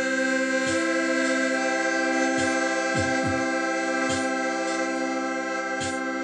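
Piano accordion holding one long sustained chord. Under it come a few short, low, drum-like hits at uneven spacing.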